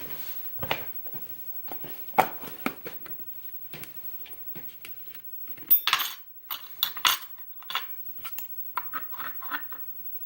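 Small metal parts clicking and clinking as Euro-cylinder lock followers are picked up and tried in a lock cylinder's core, a quick run of sharp metallic clinks around the middle and smaller ticks near the end.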